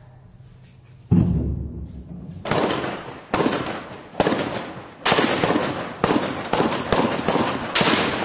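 A heavy low blast about a second in, then a string of gunshots roughly one or two a second, each one echoing.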